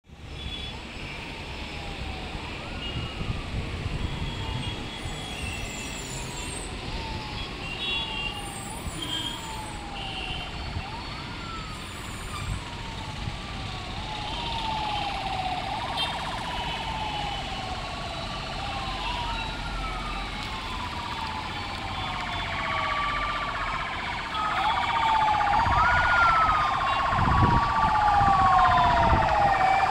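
Ambulance siren wailing, a repeating sweep that rises quickly and falls slowly about every two seconds, growing louder over the last several seconds as the ambulance comes closer.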